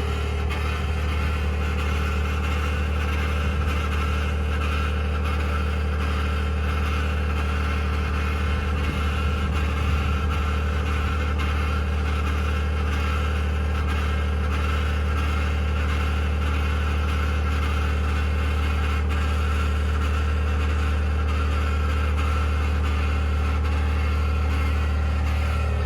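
2021 Ford F-150 PowerBoost's 3.5-litre twin-turbo V6 hybrid powertrain running steadily after a cold start, with the cavitating, grinding noise the owner is documenting.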